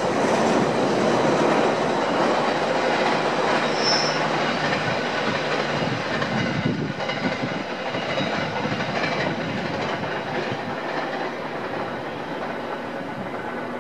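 Freight train running past on the rails, its wagons rumbling and clattering over the track and slowly fading as it moves away, with a brief high squeal about four seconds in.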